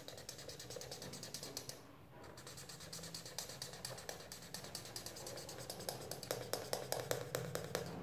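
Black marker pen scratching on paper in quick short strokes as a small area is shaded in. There is a brief pause about two seconds in, and the strokes come faster and louder near the end.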